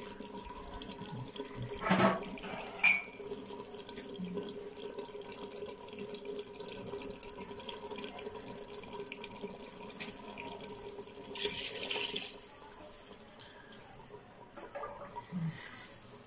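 Watery curry bubbling in a clay cooking pot while a wooden spatula stirs it, with two sharp knocks about two and three seconds in and a short louder rush of noise about three-quarters of the way through.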